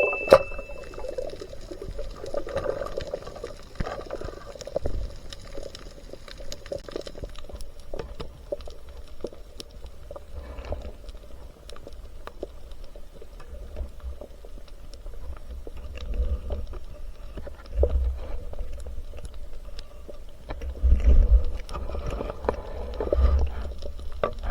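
Muffled water movement with many scattered small clicks and, in the second half, stretches of low rumbling.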